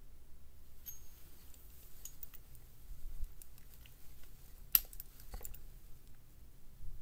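Proxxon 3/8-inch drive ratchet with a 43-tooth gear worked by hand: scattered light metallic clicks from the mechanism, with one sharp click a little past halfway and a couple of softer ones just after.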